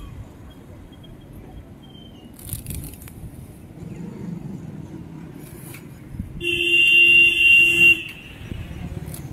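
Steady low traffic rumble, with a vehicle horn honking for about a second and a half, starting about six seconds in.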